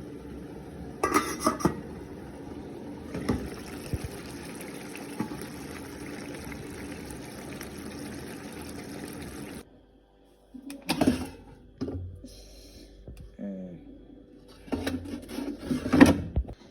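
Water running steadily with dishes and pans clattering now and then. The running water stops suddenly a little under ten seconds in, and after a short gap more dishes and pans are knocked about.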